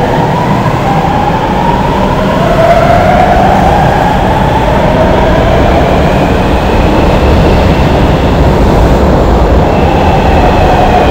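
São Paulo Metro Alstom Frota F train accelerating away from the platform. Its traction drive whines in a series of rising tones, each climbing and then starting again higher up, over the steady loud noise of the wheels on the rails.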